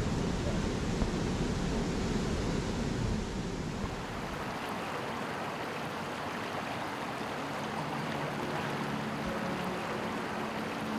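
Steady rush of a shallow mountain stream running over rocks. A low, rumbly outdoor noise fills the first few seconds, and about four seconds in it gives way to the brighter, even sound of the water.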